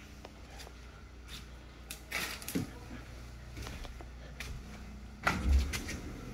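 Footsteps with scattered small clicks and knocks, and one heavier thump about five seconds in.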